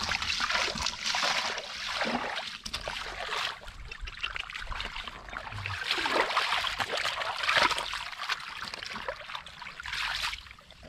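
Shallow muddy water sloshing and splashing as it is churned while searching for fish by hand in mud. It comes in several uneven swells.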